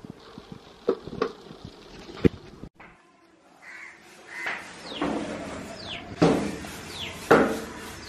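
Crows cawing, several loud harsh calls falling in pitch, coming about once a second from about halfway through. Before that, a few light taps and knocks.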